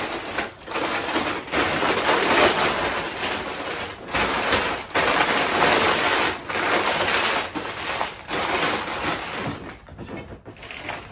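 Rustling and crinkling of artificial Christmas-tree florals and paper being handled, in irregular bursts with short breaks. It drops off briefly near the end.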